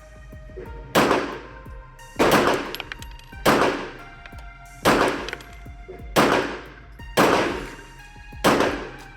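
Glock 17 9mm pistol fired in slow, steady single shots: seven shots a little over a second apart, each dying away quickly.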